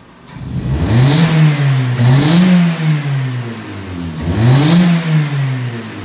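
Vauxhall Astra H's 1.6 four-cylinder petrol engine revved three times, about half a second, two and a half and four and a half seconds in, its pitch rising and falling each time, through an exhaust with the rear silencer (back box) removed. Each rev adds a raspy hiss at its peak.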